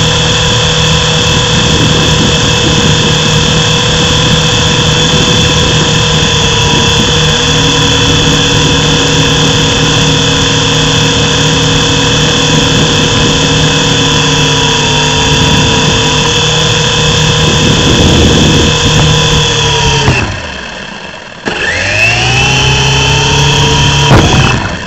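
Mini RC helicopter's electric motor and rotors whining steadily, heard loud and close from the camera riding on it. About 20 seconds in the whine drops in pitch and dies away as the motor spins down. A second or so later it starts up again sharply, the pitch rising as it spins back up, and it cuts off near the end.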